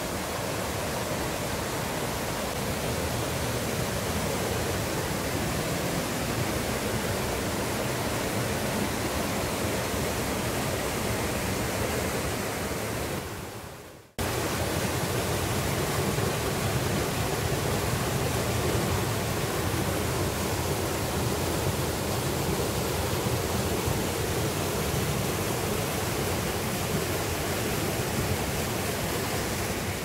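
Mountain stream rushing through rapids over granite boulders: a steady, loud wash of water. It fades away quickly about halfway through and cuts straight back in.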